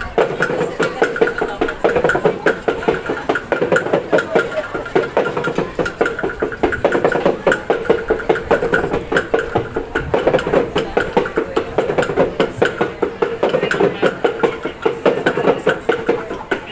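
Group singing of a Maengket song, the sung accompaniment of the Minahasa Maengket dance, over a drum beaten in a quick, steady pulse.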